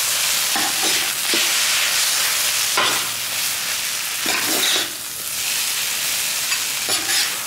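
Stir-fried rice noodles with bean sprouts sizzling on a hot flat-top teppanyaki griddle, tossed with two metal spatulas that scrape and clink on the steel plate several times.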